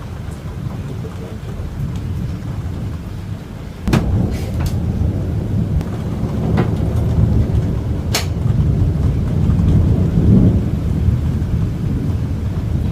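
Thunder rumbling, with a sudden sharp crack from a close strike about four seconds in that sets off louder rolling thunder, and a few more crackles after it.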